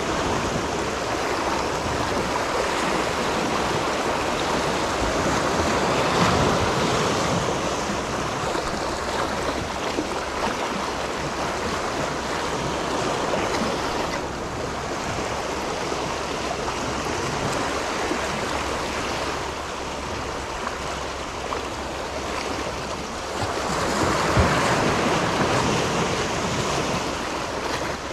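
Sea surf washing against a rocky shore, a steady rushing that swells louder about six seconds in and again near the end as bigger waves come in.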